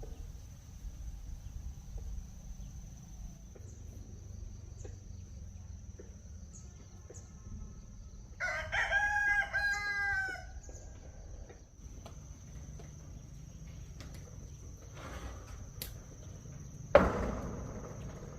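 A rooster crows once about halfway through, a call of about two seconds. Near the end there is a single sharp knock, the loudest sound, over a steady low rumble and a thin high whine.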